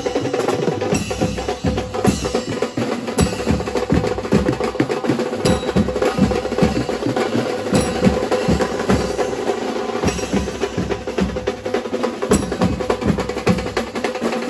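Procession band drumming: drums and sharp block-like strikes played in a fast, continuous rhythm, with a steady held tone underneath.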